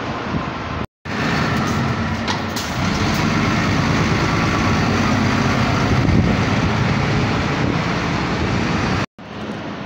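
Keio Bus non-step city bus's diesel engine running close by as the bus pulls away from the stop, growing louder and peaking past the middle. The sound cuts out abruptly for an instant about a second in and again near the end.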